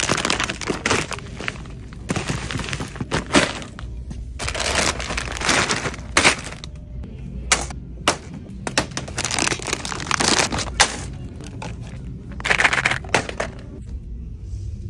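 Plastic candy bags crinkling and items knocking into a plastic shopping basket, in short irregular bursts.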